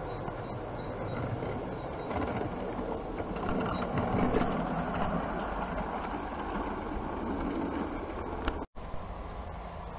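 Model diesel multiple unit running along garden-railway track, its wheels and motor making a steady mechanical clatter that grows loudest about four seconds in as it passes close by and then fades. A sharp click near the end, then the sound cuts out for a moment.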